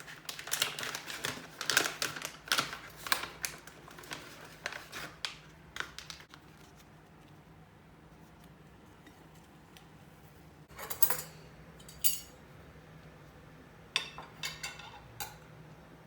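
Kitchen handling sounds: utensils and dishes clicking and clattering in a quick run for about six seconds, then a pause, two short clatters, and a brief flurry of taps near the end.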